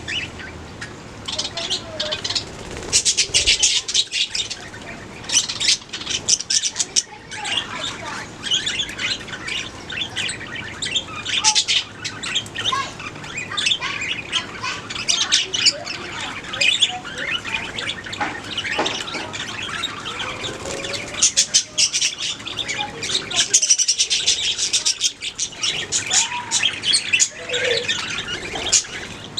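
Budgerigars chirping and warbling continuously, dense rapid chirps and clicks with the odd squawk mixed in.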